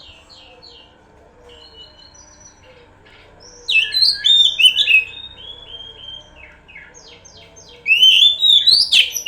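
Oriental magpie-robin singing: soft chirps, then two loud runs of rapid, varied whistled notes, about four seconds in and again near the end.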